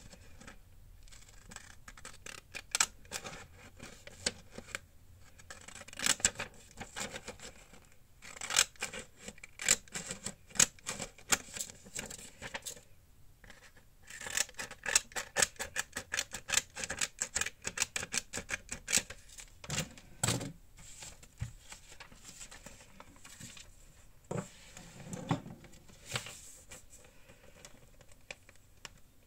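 Decorative-edge craft scissors cutting pink paper in quick runs of short, crisp snips, pausing briefly partway through. Later come softer rubbing and a few dull bumps as the cut paper is handled.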